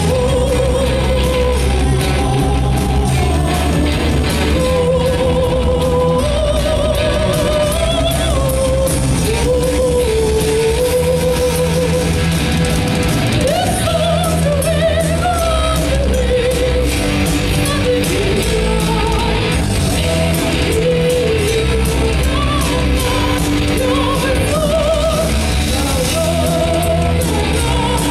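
Live heavy metal band: a female lead vocalist sings a melody over electric guitar, bass guitar and drums, played loud in a concert hall.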